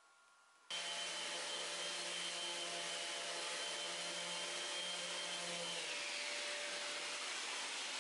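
Kärcher wet-and-dry shop vacuum running steadily, extracting dust from an electric sander. It starts suddenly just under a second in, and a high whine in it slides down in pitch about six seconds in.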